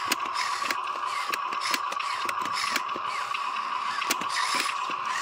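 Small electric motor of a Huina RC dump truck's tipping mechanism whining steadily while the bed raises, with dirt and small stones ticking and rattling as they slide out of the bed.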